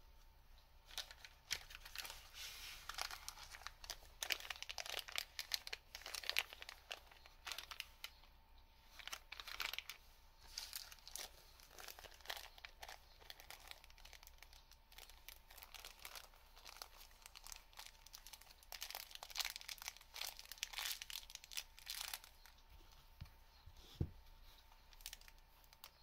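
Small clear plastic parts bag crinkling in gloved hands in irregular bursts as it is handled. A single soft thump comes near the end.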